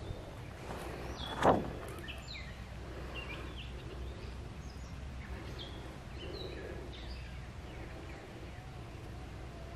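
Several small birds calling in short, high chirps scattered throughout, over a steady low outdoor rumble. About one and a half seconds in, a single brief loud bump close to the microphone.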